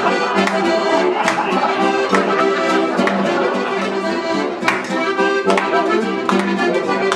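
Live Bavarian folk music played by a small band, with sustained melody notes over a regular accented beat a little under a second apart.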